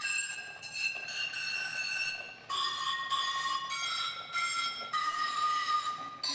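A tune played on the dishophone, a homemade instrument of struck bowls: a run of bright ringing notes changing pitch every half second to a second, each note sustaining into the next.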